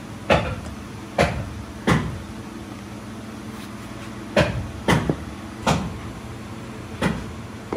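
Sharp metal knocks and clunks as iron moulding flasks of sand-casting moulds are handled and set down. There are about eight hits: three in quick succession, a pause, then five more, over a steady factory hum.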